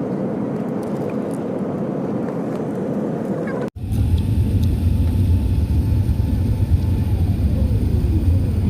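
Steady noisy hum, then, after a sudden cut, a louder deep rumble of a vehicle in motion heard from inside. A steady tone in the rumble slides down in pitch near the end.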